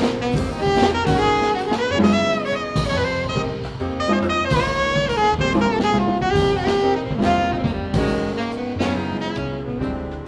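Alto saxophone soloing in a busy line of quick notes, some bent, over a jazz rhythm section of piano, double bass and drum kit.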